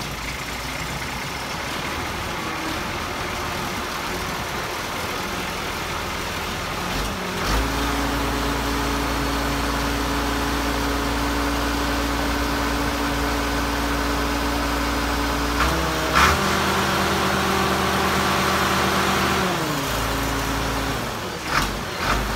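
Allis-Chalmers 220 tractor's turbocharged six-cylinder diesel engine, just started, running at a rough low idle. It is throttled up about seven seconds in to a steady higher speed, rises again with a short sharp knock about sixteen seconds in, and eases back down near the end.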